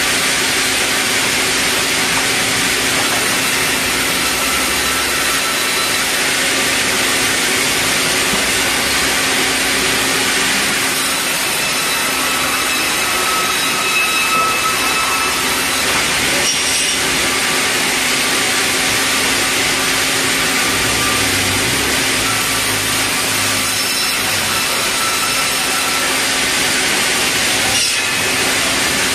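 Large sawmill band saw running steadily, its blade cutting red meranti timber into boards, with a constant hum under the cutting noise.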